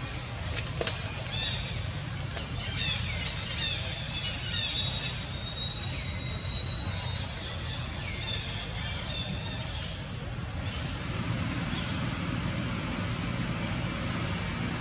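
Outdoor ambience: a steady low rumble under repeated high, quick chirping calls through the first half, with one held high whistle around six seconds in.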